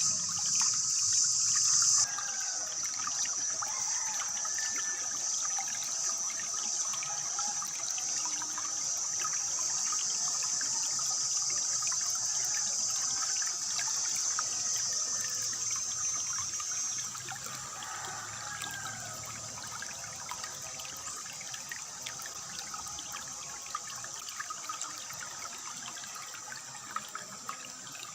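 Water trickling steadily, with birds chirping now and then. A high steady hiss rides over it, dropping in level about two seconds in and fading away a little past the middle.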